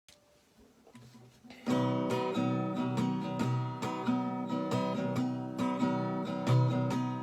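Acoustic guitar strummed in chords, starting suddenly about a second and a half in after a near-quiet start, with repeated strokes throughout: the opening of an improvised instrumental.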